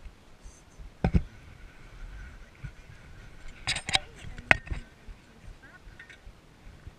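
Several sharp knocks and clicks right at the action camera, from something touching the camera or the surface it is fixed to: one about a second in, then a quick cluster a little past the middle, which is the loudest. A low wind rumble on the microphone runs underneath.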